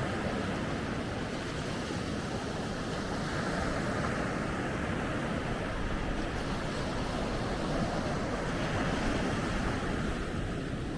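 Ocean waves breaking and washing on a beach, a steady surf that swells and eases a little, with some wind on the microphone.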